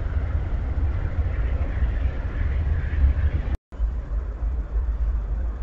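Steady low rumble of rail yard background noise, with a split-second dropout about three and a half seconds in where the recording cuts.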